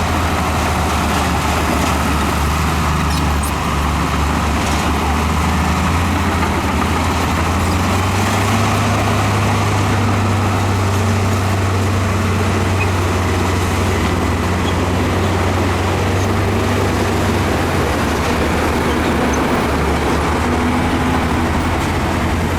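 Heavy earthmoving machinery's diesel engine running under load: a steady low engine drone whose pitch shifts slightly a couple of times.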